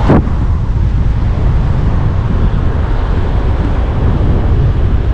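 Loud, steady rushing noise of wind buffeting the microphone, heaviest in the low end.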